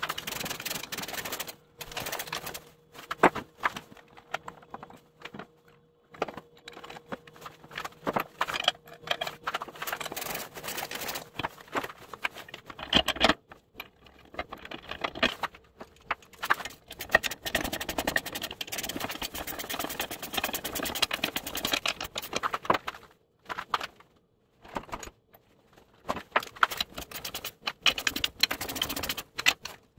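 Hand ratchet wrench clicking in quick runs as bolts are turned on an ATV plow mount plate, with short pauses and occasional sharper metal knocks between runs.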